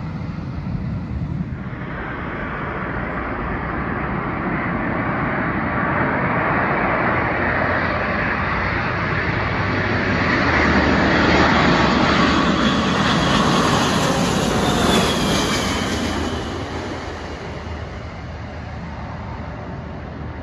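Jet airliner flying low overhead on final approach. Its engine noise swells to a peak about halfway through, a whine falls in pitch as it passes, and then it fades away.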